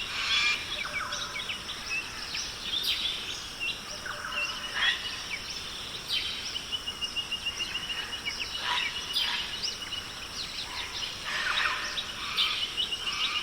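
Rainforest ambience: many birds calling and chirping over a steady high-pitched hum, with a rapid trill lasting about three seconds, starting about six seconds in.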